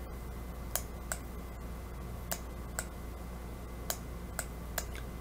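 Sharp clicks of a stylus pen tapping and lifting on a tablet screen while handwriting, about seven of them and mostly in pairs, over a steady low electrical hum.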